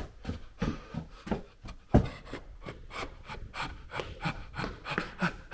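Quick, regular footsteps, about three a second, with a heavier thud about two seconds in, mixed with the rub of clothing against a handheld camera.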